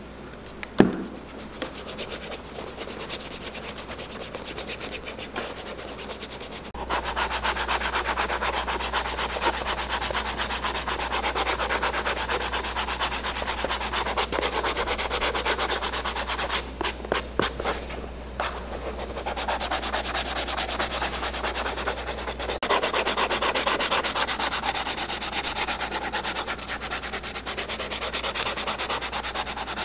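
Sandpaper on a hand-held sanding block scrubbed rapidly back and forth over scuffed, lotioned boot leather, smoothing it before it is re-dyed. It is quieter at first, after a single sharp click about a second in, and gets louder and steadier about seven seconds in, with a couple of brief pauses.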